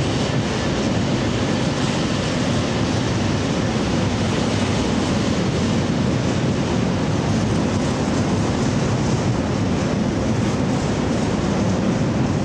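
Container freight train's wagons rolling past close by: a steady, loud noise of wheels running on the rails.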